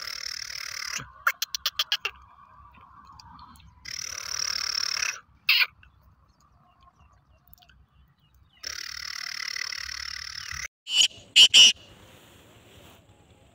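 Male black francolin calling: three harsh, grating calls of a second or two each, the first followed by a quick rattle of about eight clicks a second, then a few short, loud sounds near the end.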